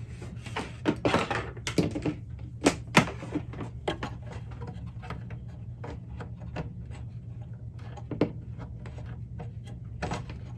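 Scattered clicks and light knocks of small objects being handled and moved about, busiest in the first few seconds, over a steady low hum.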